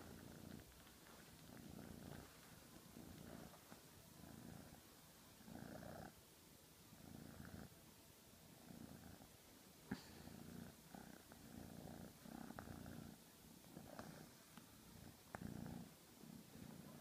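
Domestic cat purring close to the microphone, the purr swelling and fading with each breath, about one cycle a second. A couple of sharp clicks cut through it; the loudest comes about ten seconds in.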